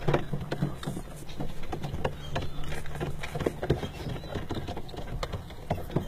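Light, irregular taps and clicks, several a second, heard from inside a car over a low steady hum.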